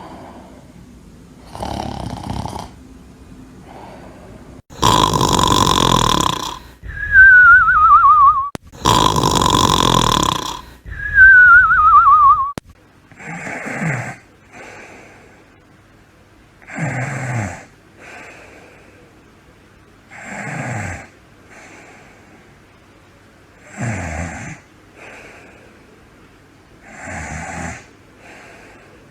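Snoring. Two loud snores each end in a wavering whistle that falls in pitch. Then steady snoring about every three and a half seconds, each snore a rasping breath dropping in pitch followed by a short breath out.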